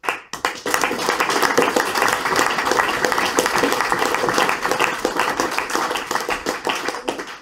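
Audience applauding: many hands clapping together, starting suddenly and holding steady for about seven seconds before dying down near the end.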